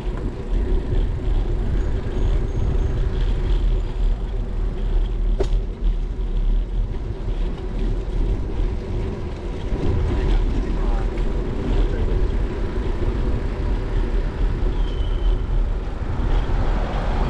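Steady low rumble of wind and road noise on a bicycle-mounted GoPro's microphone while riding along a paved street, with one sharp click about five and a half seconds in.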